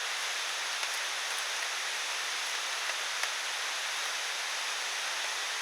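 Steady rainfall: an even hiss of rain with a few faint ticks.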